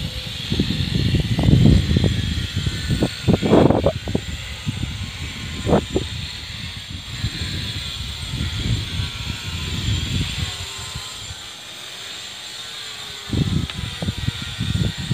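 Wind buffeting the microphone in irregular low rumbles that ease off for a moment near the end, with a few handling knocks and a steady high hiss.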